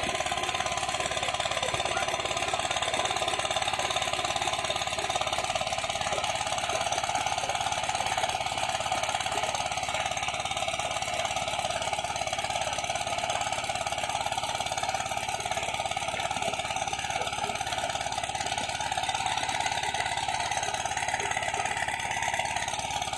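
Small motorboat engine running steadily at an even speed.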